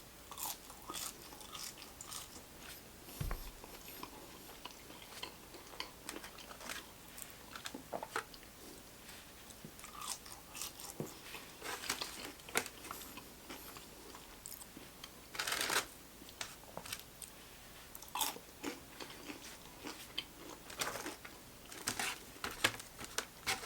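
A person chewing and crunching crispy fried fast food with the microphone close to the mouth: irregular soft crunches and mouth clicks, with a louder crunch about two-thirds of the way through.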